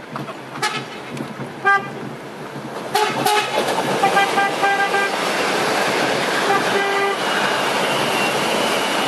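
A CPTM suburban electric train sounds its horn as it approaches: a couple of short toots, then longer blasts from about three seconds in. Under them the rolling noise of the train builds and becomes a steady loud rush as it passes close by.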